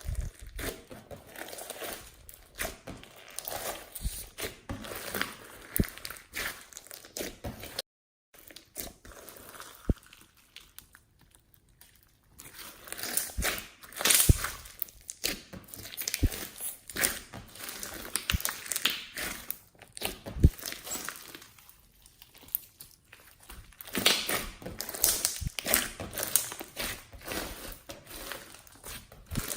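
Slime being kneaded and stretched by hand: a dense run of sticky crackles, clicks and small pops. The sound breaks off for a moment about eight seconds in.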